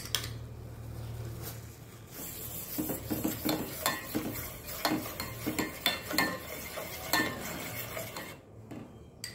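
A steel spoon stirring carrot paste into boiling milk in a stainless steel pan, with repeated clinks and scrapes of the spoon against the pan from about three seconds in. A low hum under the first two seconds stops.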